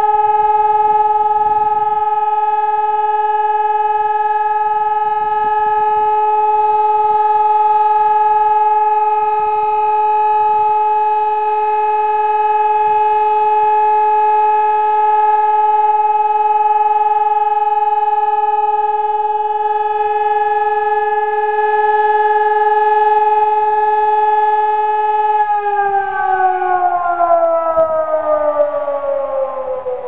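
ECN electronic civil-defence siren sounding the German all-clear (Entwarnung) signal as one steady, unbroken tone. About 25 seconds in, the tone begins to fall in pitch as the siren winds down at the end of the signal.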